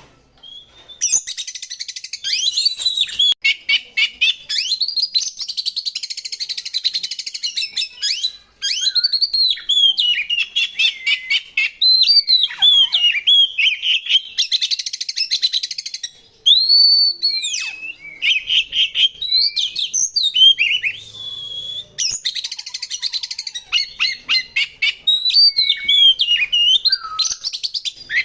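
Oriental magpie-robin (kacer) in full, loud song. Varied slurred whistles alternate with fast, harsh rattling trills, with barely a break. A single clear whistle rises and falls about two-thirds of the way through.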